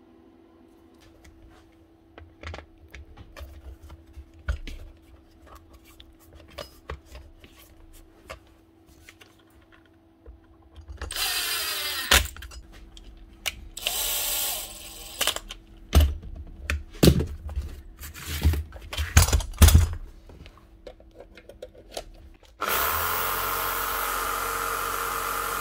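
Makita JR3070 reciprocating saw test-run after its lead and plug were replaced, showing it now works. Small clicks and knocks come first. The motor then starts for short runs that wind down, gives a string of brief trigger blips, and settles into a steady run near the end.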